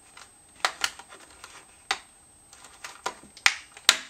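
Clear plastic packaging tray being pried open by hand: about half a dozen sharp, irregular plastic clicks and snaps, the loudest two near the end.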